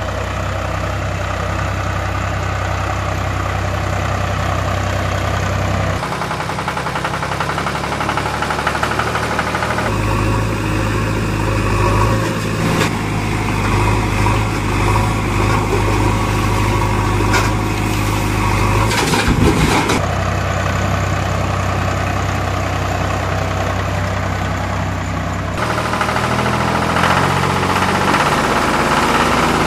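A vehicle engine running steadily, its sound switching abruptly several times, with a few clunks partway through.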